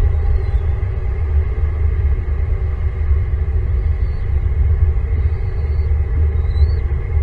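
Steady low rumble, with a few faint, short high chirps scattered through it, the clearest about two-thirds of the way in.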